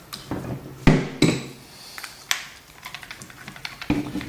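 Steel parts of a hydraulic brake shuttle valve and hand tools clinking and knocking on a table while the valve's adjuster is worked out. Two sharp metallic knocks about a second in are the loudest sounds.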